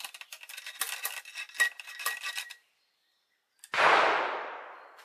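A run of small metallic clicks and clatter, then a little past halfway a single loud shot from a .61-calibre percussion over-under double rifle firing a black-powder charge, its report dying away over about a second.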